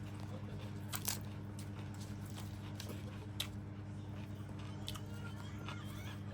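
A person eating, chewing and biting with crunching sounds and a few sharp clicks, twice about a second in and once past the middle. A steady low electrical hum runs underneath.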